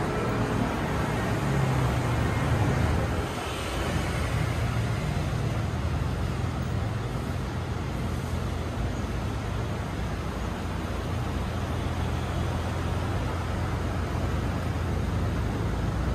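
Street traffic: a steady low rumble of vehicle engines and tyres, swelling briefly about two to three seconds in.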